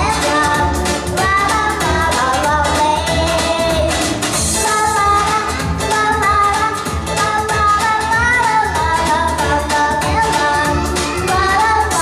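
A young girl singing a pop song into a handheld microphone over a backing track with a steady beat.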